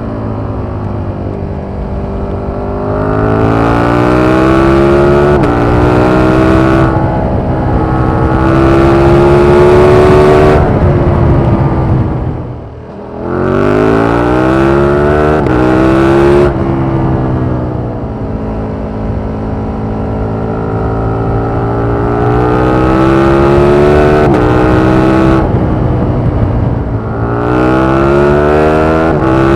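KTM 1390 Super Duke's V-twin engine pulling through the gears: the pitch climbs steadily and drops sharply at each of several upshifts. Near the middle the engine note falls away and quietens briefly as the throttle closes, then climbs again.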